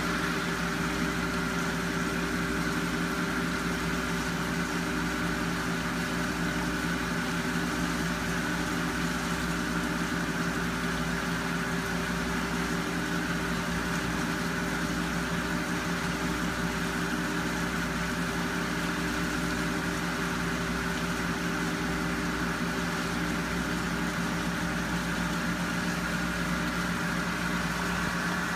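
Steady mechanical hum of aquarium tank equipment such as a water pump, holding several constant tones with a faint higher whine above them.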